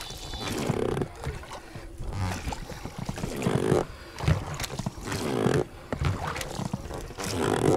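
Oars rowing an inflatable boat: a rhythmic creak of the oars working in their oarlocks, about one stroke every one and a half to two seconds.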